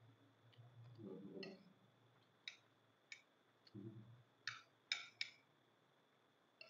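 Metal spoons clinking and scraping against ceramic plates while scooping rice: a handful of short, sharp clicks in the second half, the loudest about five seconds in.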